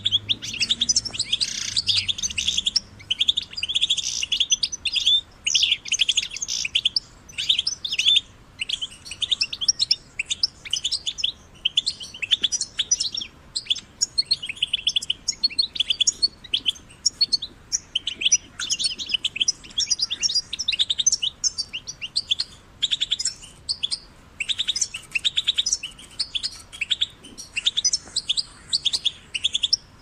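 European goldfinch singing: a long, fast run of high-pitched chirping phrases, broken by short pauses every few seconds.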